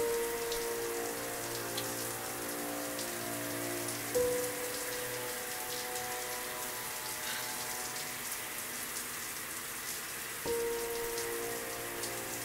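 Steady rain falling, under slow held musical chords that sound at the start, again about four seconds in and about ten seconds in, each fading away gradually.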